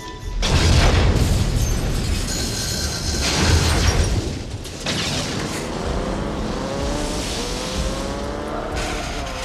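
Film sound effects of a heavy tow truck crashing down into a concrete canal: a loud, deep impact with debris about half a second in and another loud crash-and-scrape a few seconds later. Then an engine revs steadily higher in pitch under the chase, with film score underneath.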